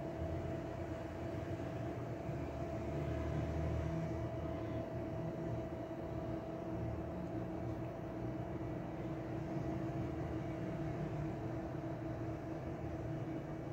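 A steady machine hum, with two steady tones over a low rumble.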